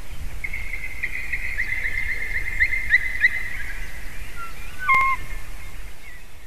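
White-tailed eagle whining from above the nest: a thin, high, drawn-out wavering call with short chirps in it, then a brief lower call with a click about five seconds in.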